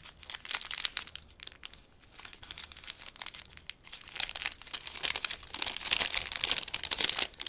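Wrapping on a small gift package crinkling and tearing as it is unwrapped by hand, a dense run of crackles that gets louder in the second half.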